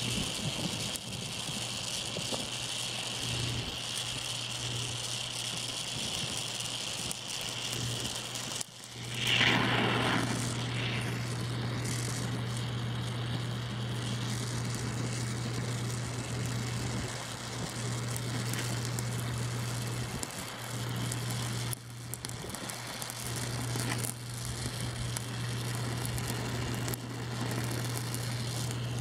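Oxy-acetylene welding torch burning a neutral flame, hissing steadily as it melts a puddle in thin steel, over a steady low hum. About nine seconds in the hiss swells louder for a second or so.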